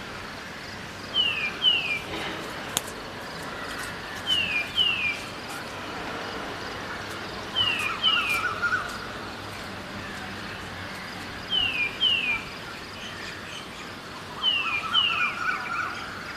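A bird calling repeatedly, each call two quick falling notes, coming about every three to four seconds and sometimes followed by a short lower chatter. Behind it is a steady hush of city ambience.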